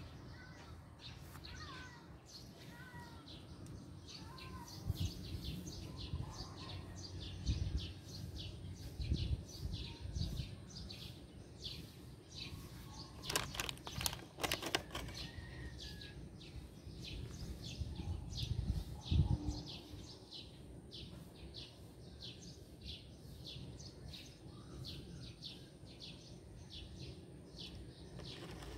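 Birds chirping, with a short high chirp repeating evenly about twice a second, and a few dull low thumps.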